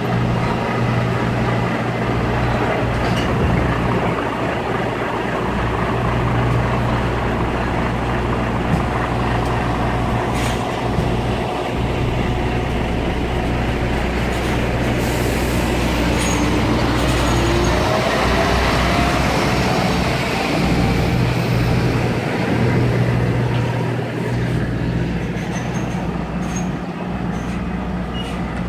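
Volvo articulated lorry's diesel engine running steadily as the lorry moves slowly past and away. About halfway through there is a short hiss of air, and soon after that a rising whine as it pulls off.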